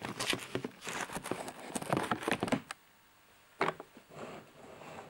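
Handling noise from a camcorder being moved about: a cluster of short crinkly rustles and knocks over the first two and a half seconds, then a pause and one more sharp rustle a little past the middle.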